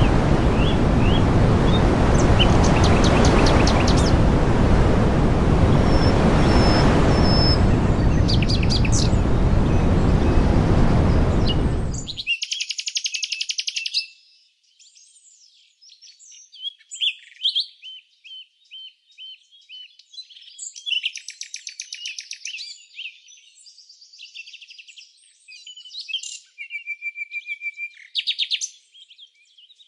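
Small birds chirping over a loud, steady rush of noise that cuts off abruptly about twelve seconds in. After that the birdsong goes on alone, a mix of quick chirps, buzzy trills and short whistles from more than one bird.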